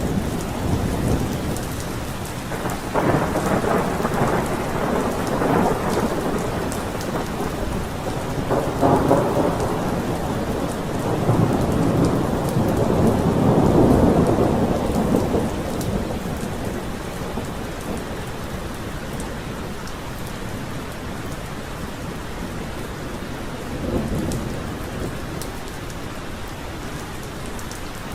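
Thunderstorm: steady heavy rain with rolling thunder, long rumbles swelling and fading several times in the first half and once more, smaller, near the end.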